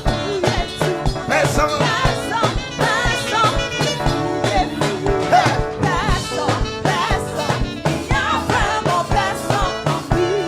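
Gospel choir singing with band accompaniment over a steady drum beat.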